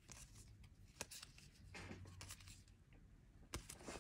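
Faint handling of 2019 Topps Update baseball cards being flipped through by hand: soft slides and a couple of sharp little ticks as cards move from the back of the stack to the front.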